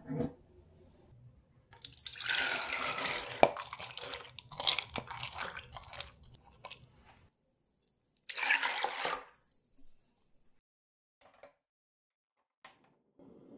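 Soaked, hulled mung beans and their soaking water poured from a plastic cup into a saucepan, a splashing pour lasting about five seconds. A second short burst of pouring comes about eight seconds in, and there are a couple of light clicks near the end.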